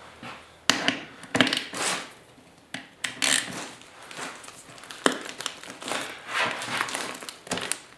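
Hand-tool work on a rusty motorcycle seat pan: a few sharp metal clicks and knocks among short, irregular rustling and scraping noises, with a stuck fastener being worked loose after a dose of WD-40.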